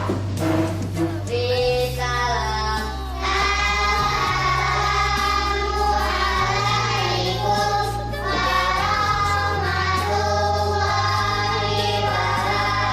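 Arabic devotional song (sholawat) sung by a group of voices over an electronic keyboard backing, with long held bass notes that change every second or two.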